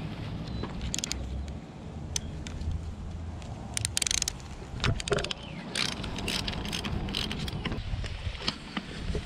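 Metal clinks and clanks of hand tools and a chain against an engine being worked on at its motor mounts, with a short rapid rattle about four seconds in.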